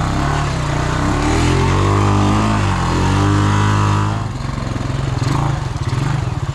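Honda Rancher 350 ATV's single-cylinder engine revving up, easing off briefly and revving again, then dropping back to a low, pulsing idle about four seconds in.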